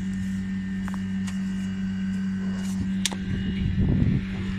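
A steady low machine hum with a fainter high steady whine above it, plus two light clicks in the middle.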